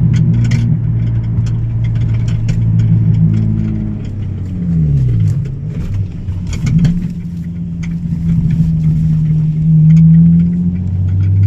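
Nissan 350Z's VQ35 3.5-litre V6 engine running under way, heard from inside the car: its note falls about five seconds in as the revs drop for a gear change, then climbs steadily and drops again near the end.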